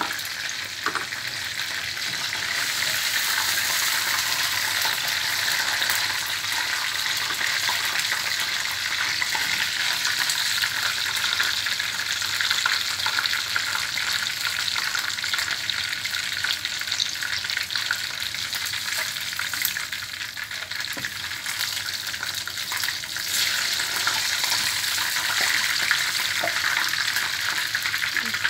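Masala-coated chicken pieces frying in hot oil in a pan: a steady sizzle, with a few faint clicks.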